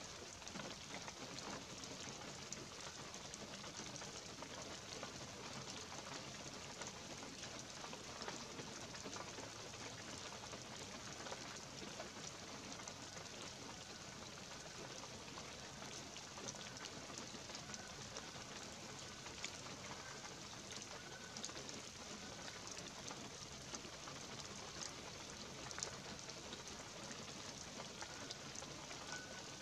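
Light rain falling on pine trees and the needle-covered forest floor: a steady hiss of many small drop ticks. A bird gives faint short calls a few times in the second half.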